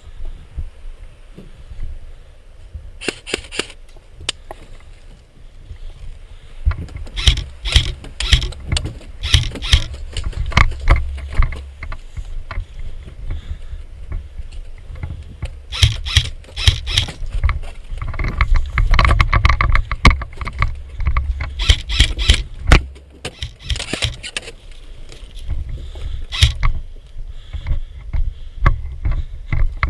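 Footsteps crunching over rough ground, coming in runs of quick steps, over a constant low rumble of wind and handling noise on a body-worn camera's microphone.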